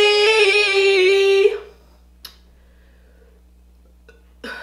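A woman's voice singing one long held note that stops about a second and a half in, then quiet room tone with a faint click and a short sound near the end.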